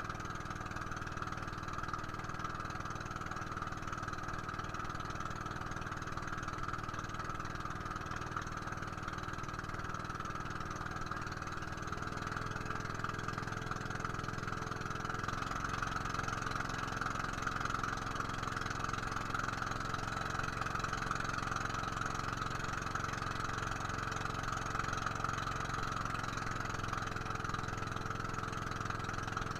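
Boat engine running steadily underway. The engine note changes about 12 seconds in and again a few seconds later, getting a little louder, as the engine picks up.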